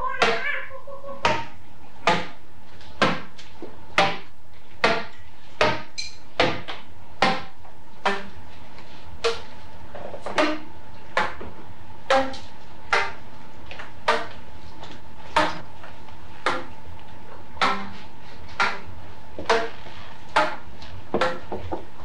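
A steady, slightly uneven rhythm of sharp knocks on stage, about one a second, some ringing briefly. A constant low hum of an old tape recording runs underneath.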